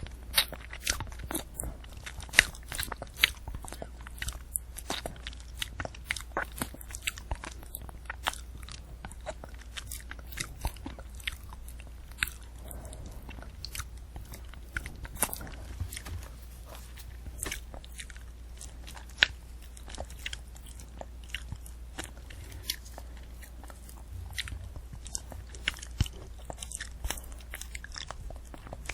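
Close-up eating of a candy apple: the hard sugar shell cracking and crunching between the teeth and the apple being chewed, in many sharp irregular crunches over a low steady hum.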